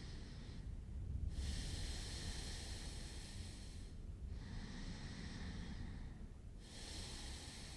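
A person breathing slowly and deeply near the microphone: long, even, hissing breaths in and out, each about two seconds, with short pauses between them, taken while resting in child's pose.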